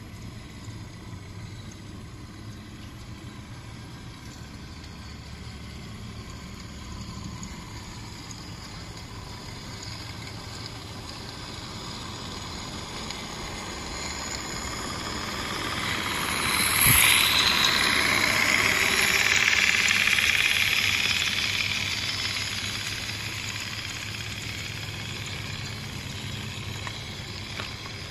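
Regner Class A Climax, a live-steam model geared locomotive, running past on garden-railway track with hissing steam and running noise. It grows louder as it approaches, is loudest as it passes about 17 seconds in, and fades as it runs away.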